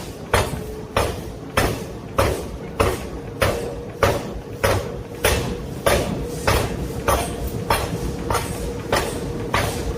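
Hammer blows on hot metal at the forge, striking in a steady rhythm of about one and a half blows a second, over a constant ringing tone. The blows grow weaker near the end.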